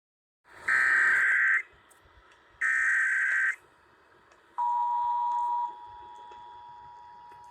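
Emergency Alert System test: two roughly one-second bursts of screechy digital header data, then the steady two-note attention tone starting about four and a half seconds in, loud for about a second and then continuing more quietly.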